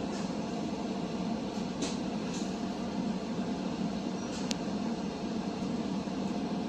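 Steady running rumble of a commuter train in motion, heard from inside a passenger car, with a couple of faint clicks.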